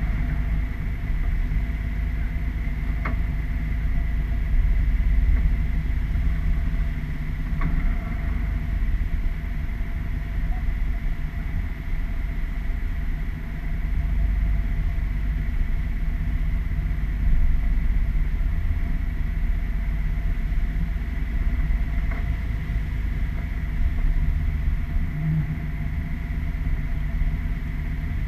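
Pilot boat's engines running steadily while it holds station alongside a large ship's hull: a continuous low rumble with a steady thin whine over it, and a few faint knocks.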